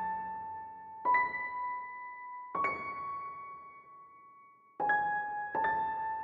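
Background music: slow, sparse single high keyboard notes, like an electric piano, each struck and left to ring out, with a new note about every one to two seconds.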